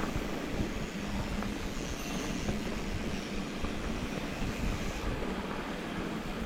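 Mountain bike tyres rolling over a dirt trail, with wind rumbling on the camera microphone and a few light clicks.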